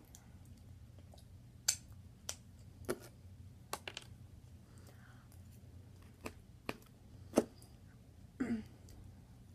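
Eating noises from food being handled and eaten by hand: about nine short, sharp clicks and smacks scattered at irregular intervals, over a faint steady low hum.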